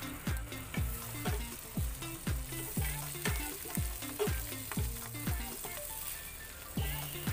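Bread slices, ham and an egg omelette frying in butter in a pan with a steady sizzle, under background music with a steady beat of about two kicks a second.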